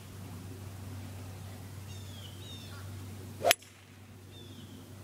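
Golf club striking a ball off the tee: one sharp crack about three and a half seconds in. Short, falling bird chirps repeat around it.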